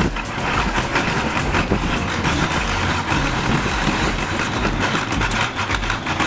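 Heavy truck engine running under load, with dense rattling and clattering over a low rumble.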